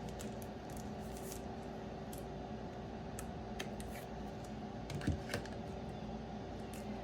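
Trading cards being handled: faint scattered clicks and scrapes, with a small knock about five seconds in, over a steady low hum.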